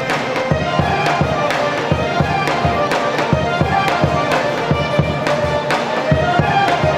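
Traditional folk dance music: a sustained melody line over a steady drum beat of about two beats a second.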